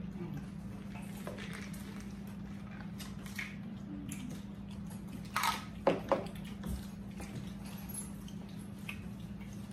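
Eating at close range: scattered small clicks and crunches of chips and dip, with a few sharper clacks about five to six seconds in. A steady low electrical hum runs underneath.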